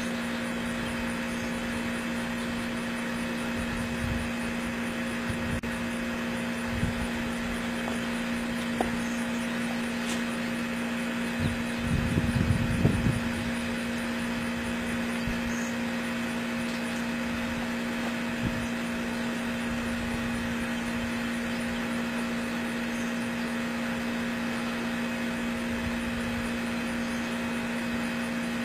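Steady hum with a constant low tone and hiss, with a few soft low thumps, the loudest cluster about twelve seconds in.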